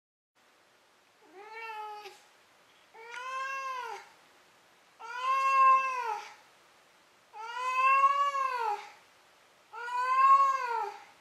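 Tabby-and-white domestic cat meowing five times, about two seconds apart, each call rising then falling in pitch; the first two are softer and the last three louder and longer.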